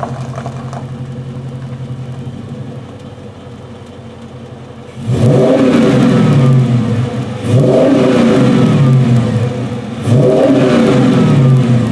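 Dodge Challenger SRT8 392's 6.4-litre Hemi V8 through a Flowmaster exhaust, idling steadily, then revved three times about two and a half seconds apart, each rev climbing and falling back to idle.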